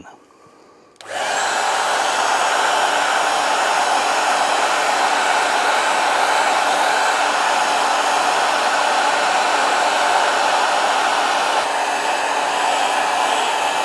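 Hand-held hair dryer switched on about a second in and blowing steadily on its hot setting, melting a coat of Sno-Seal wax into a leather work glove.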